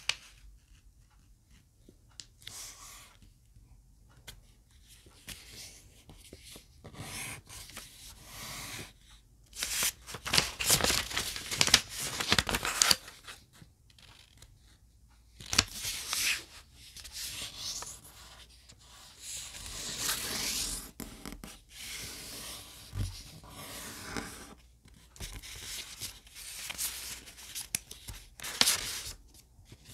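Square origami paper being folded and creased by hand: irregular rustling and crinkling as the sheet is bent and fingers press and slide along the folds. It comes in bursts, quiet for the first few seconds.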